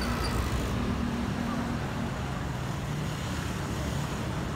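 Steady hum of city traffic, with faint voices of passers-by in the background.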